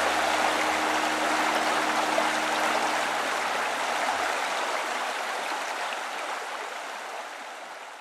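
Mountain stream water rushing over rocks, a steady hiss that fades out toward the end. Low held music notes die away about three to four seconds in.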